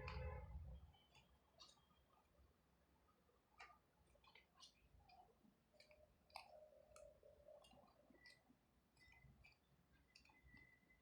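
Near silence with a soft low thump at the start, then faint scattered clicks and taps: a paper model being handled and pressed together while the glue sets.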